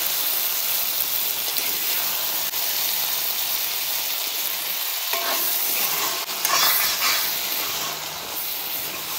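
Chicken liver and ridge gourd frying in a pan with a steady sizzle, and a few louder scrapes of stirring between about five and seven seconds in.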